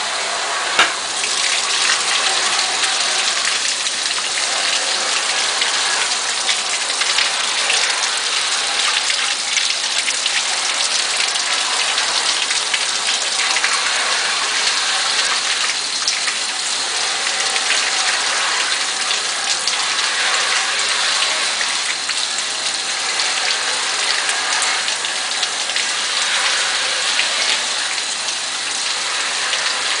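1948 Cameron Jet-Agitated countertop dishwasher running its wash: water from the sprayer in the lid hisses and splashes steadily over the dishes as the jets spin the basket. A single sharp click sounds about a second in.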